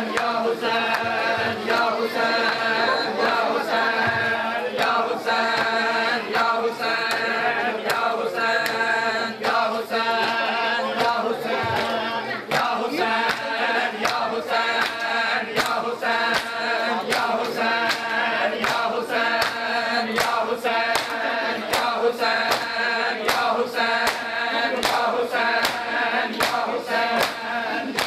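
Crowd of men chanting a noha (Shia lament) in unison, while bare chests are struck by hand in matam, the sharp slaps falling in a steady rhythm with the chant.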